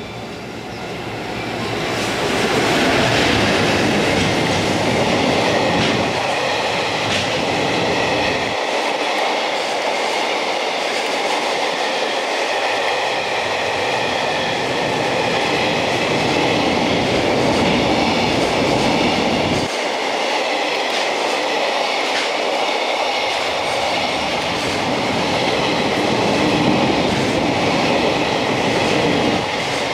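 A JR Freight EF210 electric locomotive passing, getting loud about two seconds in, followed by a long string of loaded container wagons running steadily past, their wheels rumbling on the rails.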